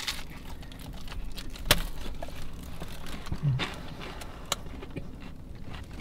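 A man eating a breakfast sandwich inside a car: quiet chewing with a few small clicks and rustles.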